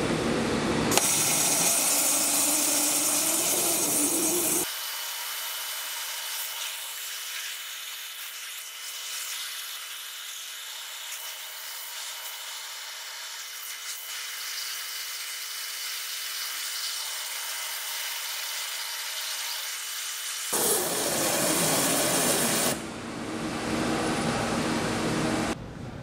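OMAX abrasive waterjet cutting through a plastic computer speaker: a loud, hissing jet. Through most of the middle the hiss is thinner, without its low end, over a steady high whine, then it comes back full near the end.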